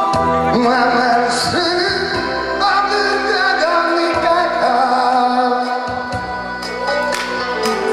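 Pop song backing music through a PA, a gliding melody line over steady bass notes that change every second or two.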